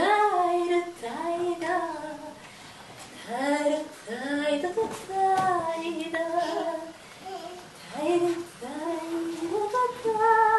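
A high voice singing a melody in short phrases, sliding up into most notes before holding them.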